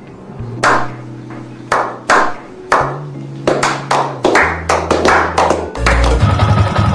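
A group of people clapping hands in a syncopated rhythm, single claps and quick runs of claps, over low held bass notes that change pitch. Near the end it cuts to a steady machine hum.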